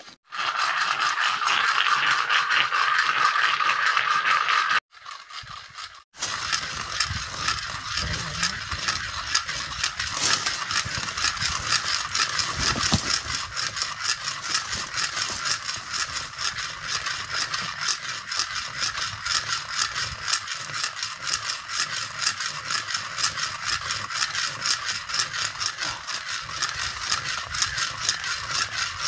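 Cicadas buzzing in a dense chorus: a loud, high buzz that is steadier for the first few seconds, cuts out briefly about five seconds in, then goes on as a fast, even pulsing buzz.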